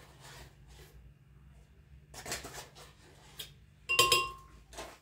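Kitchen utensils handled over a glass blender jug as ingredients are tipped in: soft rustling, a louder scrape about two seconds in, and a sharp ringing clink about four seconds in.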